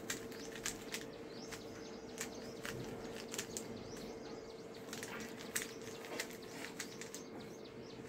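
3x3 Rubik's cube being turned by hand: a run of quick, irregular plastic clicks as the layers are twisted, over a steady low hum.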